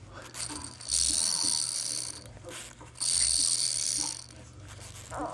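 A mechanism whirring in regular pulses, about one every two seconds, each lasting a second or so with a steady hiss-like tone.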